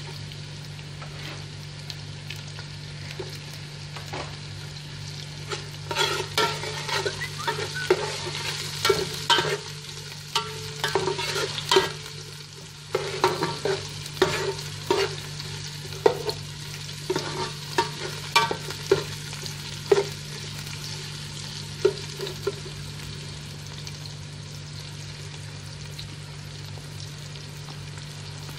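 Onion, garlic and ginger sizzling in oil in a stainless steel pot, with a metal spoon scraping and clinking against the pot as they are stirred; the clinks come thickest through the middle part. A steady low hum runs underneath.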